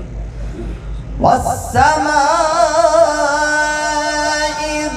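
A male Quran reciter chanting in melodic tajweed style. He starts about a second and a half in, rising into the word "wa-s-samā'" ("by the sky"), then holds one long ornamented note with a wavering vibrato to the end. Before he starts there is only a low steady hum.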